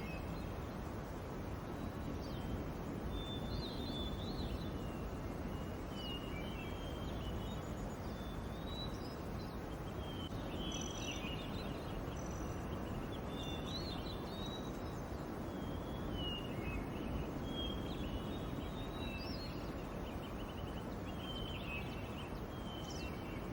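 Outdoor ambience: a steady low background noise with small birds chirping in short calls every second or two.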